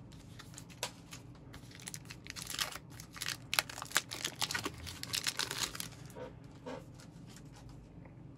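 Plastic trading-card top-loader and sleeve being handled: crinkling plastic with a scattered string of small sharp clicks and taps.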